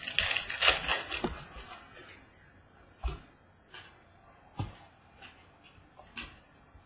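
Trading cards handled by hand: about two seconds of rustling as cards are slid through, then five light taps as single cards are flicked or set down.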